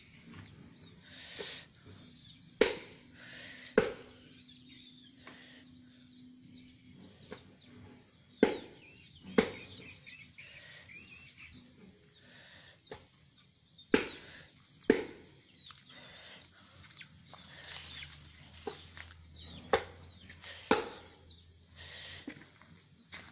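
Heavy thuds, mostly in pairs about a second apart and repeating every five or six seconds: a long wooden pestle pounding cooked rice-flour dough in a plastic bucket for khanom jeen noodles. Birds chirp throughout.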